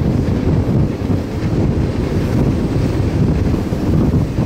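Wind buffeting the microphone on a moving double-stack container freight train, over the train's steady low rumble.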